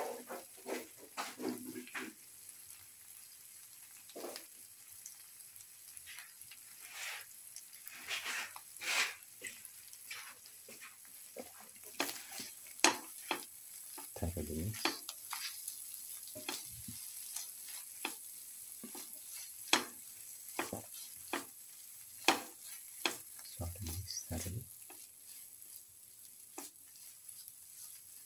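Spatula stirring and scraping clam meat and ground spices around a pan in quick, irregular strokes, over a faint frying sizzle, with a couple of duller knocks against the pan midway and near the end.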